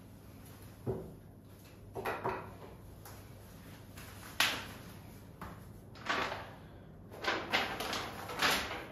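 Sheets of printed paper being picked up and leafed through: a series of short rustles and crinkles a second or two apart, closer together near the end.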